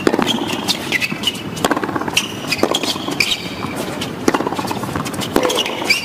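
Tennis serve and baseline rally on a hard court: sharp racket-on-ball strikes and ball bounces about every second, with short high sneaker squeaks as the players move.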